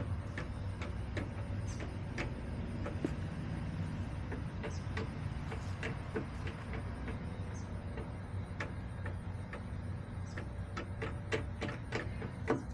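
Chickens pecking and scratching: irregular light taps and clicks, several a second and thickest near the end, over a steady low rumble.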